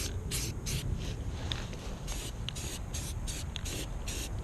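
Primer sprayed onto a trailer rim in short hissing bursts, about two to three a second: the first coat of primer going on.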